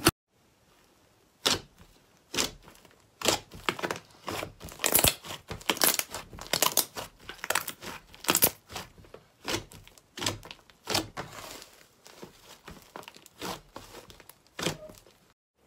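Hands kneading and pressing a large mound of thick pink slime, giving irregular crackling and tearing pops as it is squeezed and pulled apart, starting a moment in.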